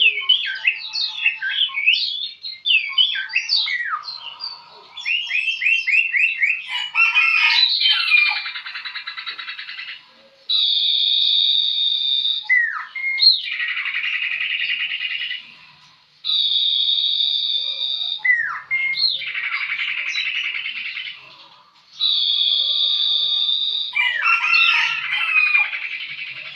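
A sirpu bird singing: a run of varied quick chirps and trills, then a repeating phrase in which a clear, steady whistled note of about two seconds alternates with a harsh buzzing rattle, three times over.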